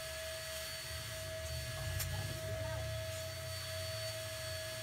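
Small electric balloon pump running with a low hum that swells and dips as it inflates a balloon, with a thin steady whine above it and a single sharp click about two seconds in.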